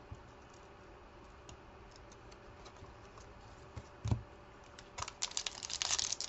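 Trading cards being handled and flicked through in the hands: scattered faint clicks, a soft knock about four seconds in, and a dense run of quick card clicks near the end.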